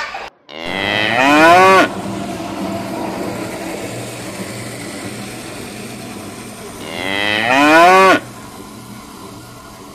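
Zebu bull mooing twice, each moo about a second long and rising in pitch, the second some five seconds after the first.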